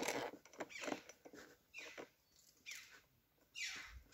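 Crow-family birds calling repeatedly, short falling calls about once a second, with a few light clicks of plastic parts being handled.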